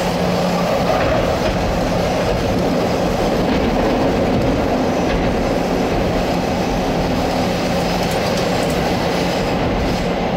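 CTA rapid-transit train running through a subway tunnel, heard from the lead car: a steady rumble of steel wheels on the rails with a constant low hum underneath.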